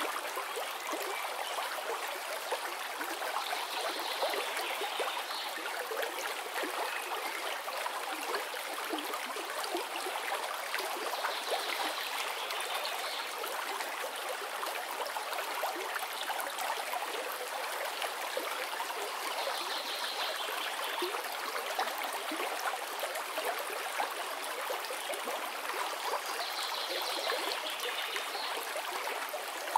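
Steady trickling and bubbling of aquarium water circulation from the tank's pump and air stone, with a slightly brighter hiss about every eight seconds.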